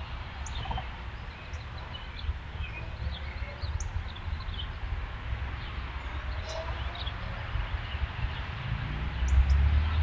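Songbirds chirping and calling in short, scattered high notes and quick pitch glides, over a steady low rumble that swells near the end.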